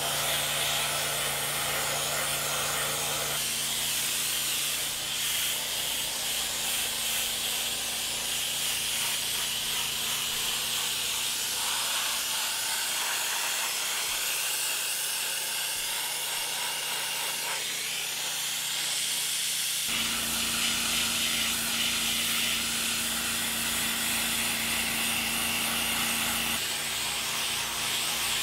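High-pressure water spray from a pressure-washer lance hitting steel framework: a continuous steady hiss, with a steady low hum underneath that changes pitch about two-thirds of the way through.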